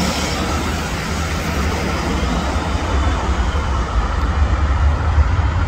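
Twin-engine widebody jet airliner on final approach, gear down, its engines heard as a steady low rumble.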